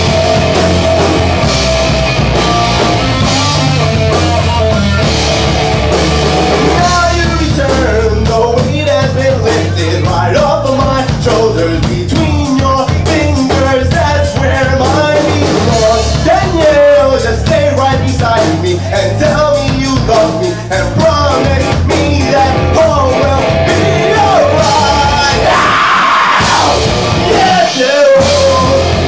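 Loud rock music from a band, with a heavy drum and bass beat; a singer's voice comes in about seven seconds in, with a rising yell-like sweep near the end.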